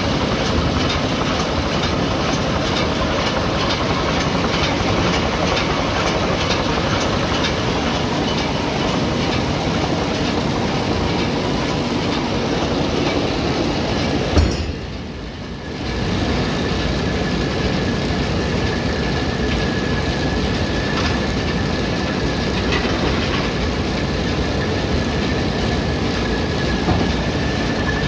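Lely Welger RPC 445 Tornado round baler-wrapper running on the spot, a steady mechanical din. About halfway through there is a knock and the noise dips for a second or so, then returns with a steady high whine added.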